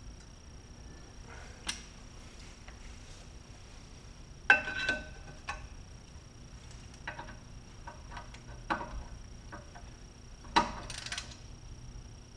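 Hand tools clinking and knocking against the steel rear brake rotor and caliper as a screwdriver is jammed into the rotor vanes to hold it still for removing the set screw. Scattered light ticks, with a sharp metallic clank that rings briefly about four and a half seconds in and another clank near the end.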